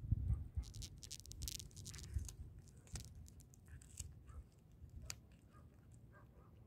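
Tabby cat chewing and tearing at food on the ground: faint, irregular crunches and wet clicks, thickest in the first few seconds and thinning out after. A low rumble is heard at the very start.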